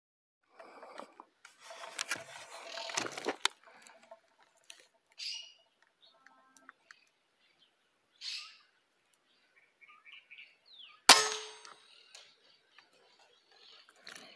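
A single air rifle shot about 11 seconds in, a sharp crack with a brief ring after it, fired at a small bird through the scope. Before it there are faint handling noises and a few short bird chirps.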